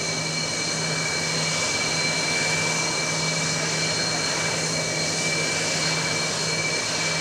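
Sukhoi Su-30 fighter's jet engines running steadily: a loud, even rush of noise with a high, steady whine over a low hum.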